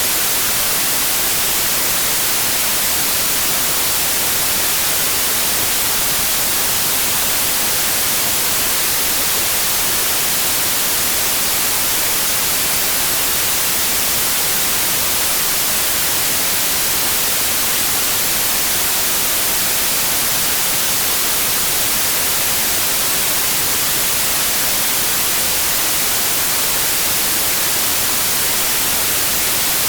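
Steady white noise: an even, unchanging hiss, strongest in the highest pitches.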